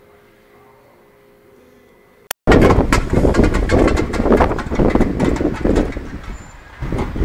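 Faint steady room hum, then, after a cut a little over two seconds in, loud, uneven outdoor noise of wind buffeting the microphone mixed with street traffic.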